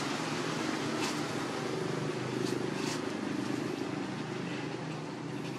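A steady low mechanical drone, like a motor running, with a few faint clicks.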